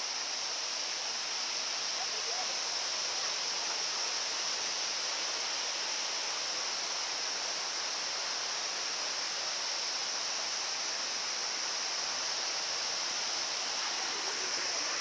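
Waterfall rushing steadily, a continuous hiss of falling water.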